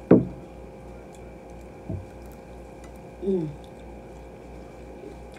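Close-up mouth sounds of eating a sauced fried chicken drumette. There is a loud wet lip smack right at the start, a softer smack about two seconds in, and a short hummed "mm" with falling pitch a little after three seconds.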